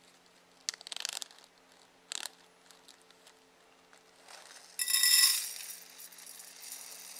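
A food packet crinkling in the hands, then ripped open with a loud, buzzing tear about five seconds in, followed by softer rustling as it is tipped over a metal pot.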